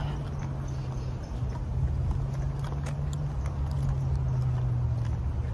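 Wind buffeting the microphone as a steady low rumble, with faint scattered footsteps on pavement.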